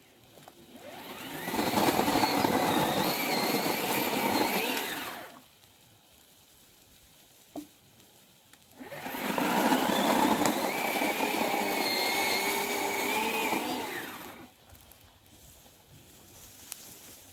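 A small motor running in two bursts of about four and five seconds, each whirring up and then dying away, with a brief click between them.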